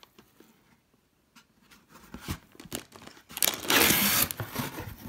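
Plastic bags of LEGO pieces crinkling as they are handled and pulled out of a cardboard box: a few light clicks and rustles, then a loud burst of crinkling lasting about a second, a little past halfway.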